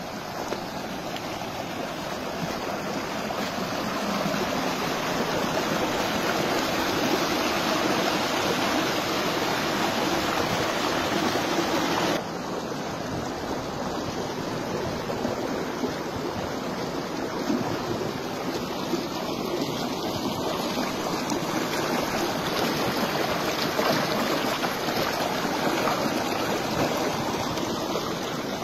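Shallow rocky stream running over boulders and small cascades: a steady rushing and splashing of water, which drops slightly in loudness about twelve seconds in.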